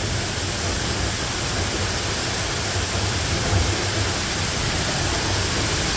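Heavy rain and rain-swollen waterfalls gushing, a steady, even rush of falling water.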